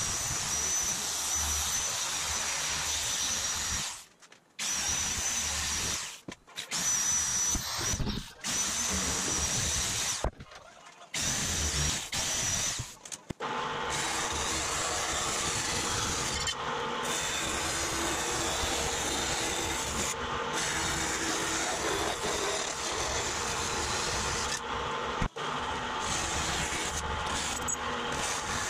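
Power tool cutting aluminum sheet, broken by several short stops in the first half, with a thin high whine over it. In the second half a vertical band saw runs steadily, cutting .063-inch aluminum sheet along a marked line.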